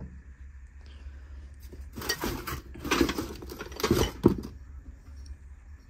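Old metal platters and trays being handled and shifted, with a few short bouts of scraping and clatter from about two seconds in and a sharp clink near the end of them.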